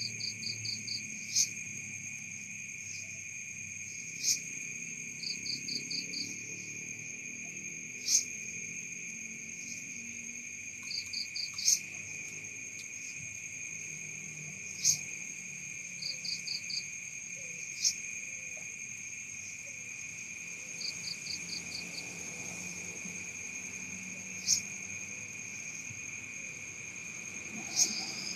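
Night insect chorus of crickets and other insects: a steady high-pitched drone with short trains of five or six quick chirps every few seconds. A single sharp click every three or four seconds is the loudest sound.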